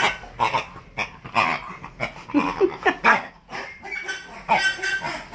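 A dog making short, irregular grunts and noises while playing with a rubber toy held in its mouth.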